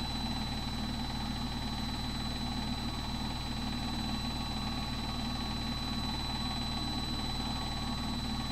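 Samsung WF80 front-loading washing machine in the main spin of a spin-only cycle, the drum spinning at speed with a steady, even whir and a constant high-pitched whine.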